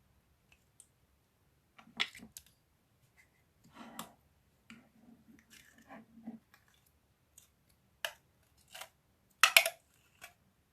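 Scattered clicks, knocks and rustles of small objects being handled at close range, the loudest a quick cluster near the end.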